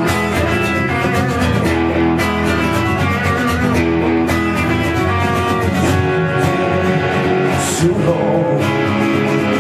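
Rock song played live on electric and acoustic guitars through amplifiers, an instrumental passage with no vocals.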